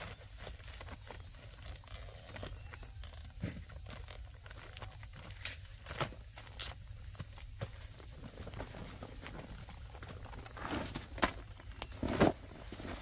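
Insects chirping steadily in a high, even pulse, about two or three chirps a second, with scattered knocks and rustles of handling or footsteps; the loudest knock comes near the end.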